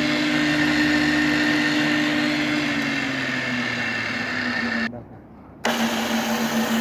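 Arboga G 2508 pillar drill running unloaded, its 1 hp motor and spindle gearing making a steady hum and whine, set to 205 rpm in the high range. The pitch sags slightly about three seconds in. The sound drops out abruptly just before five seconds and comes back just over half a second later.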